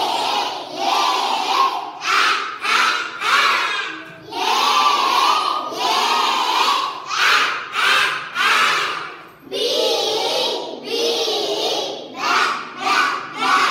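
A class of young children chanting phonics letter sounds together in unison, in loud rhythmic phrases with short breaks between them.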